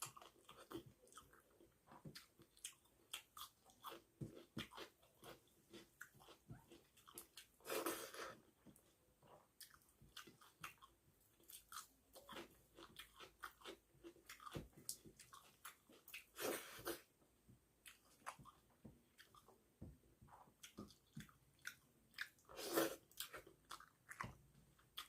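Close-up sounds of a person chewing a mouthful of rice and fish curry: many quick, soft wet clicks and smacks, with three louder mouth sounds spread through the stretch.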